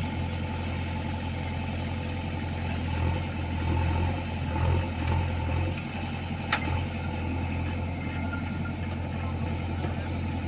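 An engine running steadily with a constant low drone, with a sharp click about six and a half seconds in.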